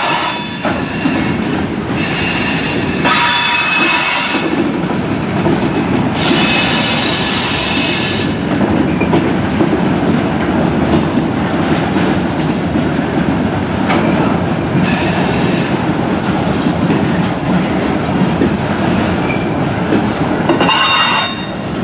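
Freight cars rolling past with a steady rumble and clatter of steel wheels on the rails. High-pitched wheel squeals come and go several times.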